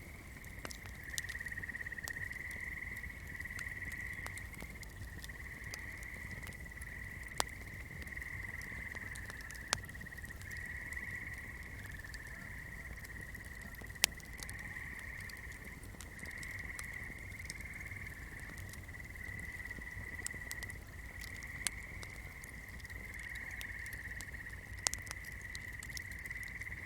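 Swamp night chorus: a steady, overlapping high trilling from many calling creatures. A candle flame crackles with occasional sharp pops, the loudest about halfway through.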